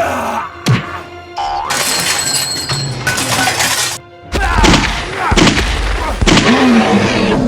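Background music mixed with sound effects: a sharp knock, then a couple of seconds of crashing, shattering noise that cuts off suddenly, followed by a heavy low rumble with gliding tones.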